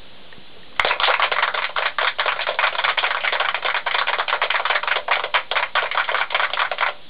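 A dense, rapid clatter of clicks that starts suddenly about a second in and stops suddenly near the end.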